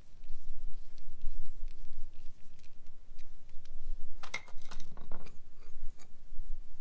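Small metallic clicks and scraping from hand tools and parts being handled while the washer screw on a hose bib valve stem is tightened, busiest about four to five seconds in, over a steady low rumble.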